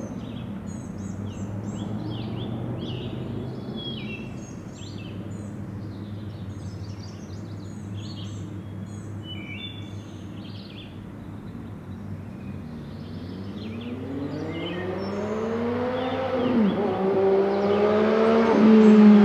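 Songbirds chirping over a faint low hum, then an MV Agusta Brutale 800 inline-triple with a QD aftermarket exhaust approaching from about thirteen seconds in. Its engine note rises in pitch and grows louder, dips briefly near the end, and is loudest at the close.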